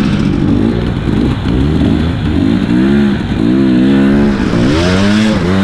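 Husqvarna dirt bike engine under way, its revs rising and falling through the throttle.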